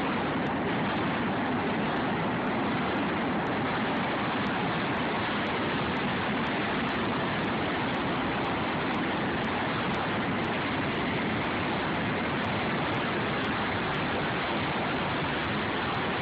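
Steady rushing noise that stays even throughout, with no blasts or collapse rumble heard.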